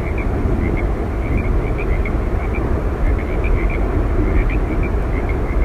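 Yosemite Falls' waterfall roar: a loud, steady rumbling rush of falling water, with short high chirps scattered through it.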